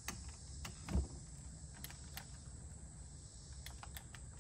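Cordless nail gun pressed against a 2x4, giving a few faint clicks and one soft knock about a second in, but no nail firing: its battery is flat. A steady insect buzz runs behind.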